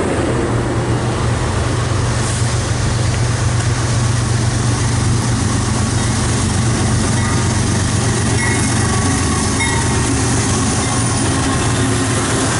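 CSX diesel freight locomotives pulling an intermodal train, passing close by with a steady deep engine drone.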